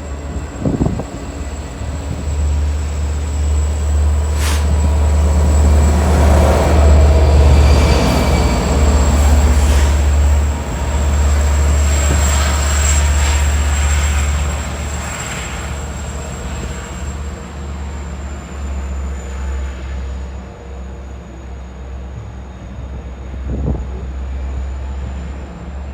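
A train passing, its low rumble building to a peak about a quarter of the way in, holding, and then fading, with one sharp click about four and a half seconds in.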